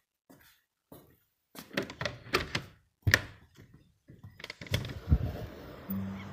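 Clicks and knocks of a white-framed glass garden door's handle and latch being worked and the door pushed open, the sharpest knock about three seconds in. After that an even outdoor ambience comes in, with a deep thump and a low steady hum near the end.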